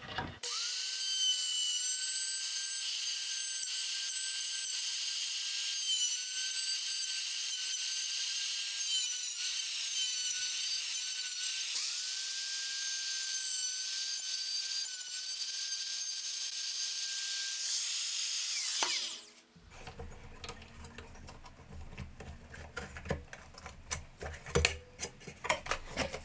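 DeWalt plunge router running under load as its half-inch bit cuts box-joint fingers in cedar through a dovetail jig, a steady high whine that dips slightly now and then as the bit bites. It cuts off suddenly about 19 seconds in, followed by light clicks and knocks of the board being handled.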